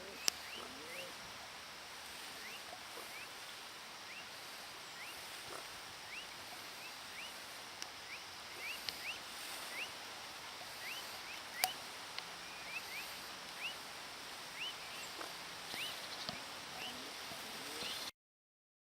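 An animal chirping: short rising chirps repeated irregularly, about one every half second to a second, over a steady hiss, with a few sharp clicks. It cuts off suddenly near the end.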